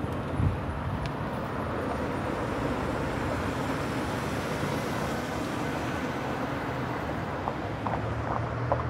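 Steady vehicle noise: an even rushing sound over a low engine hum, with the hum growing steadier near the end and a few faint clicks.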